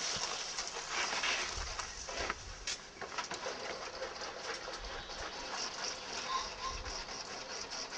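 Garden ambience with birds calling, among them a pigeon cooing, over a steady high hiss.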